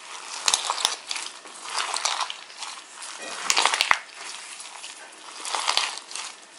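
Foam-bead slime (floam) being squeezed and stretched by hand, the packed beads giving off crackly crunching pops in swells every second or two, loudest about three and a half seconds in.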